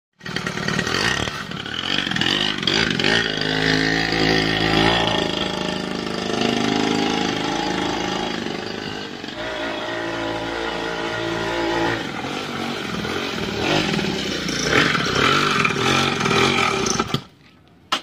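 Small two-stroke engine of a kids' mini dirt bike running and revving unevenly, its pitch rising and falling, then cutting off abruptly near the end. The owner says this engine surges wildly and won't keep running.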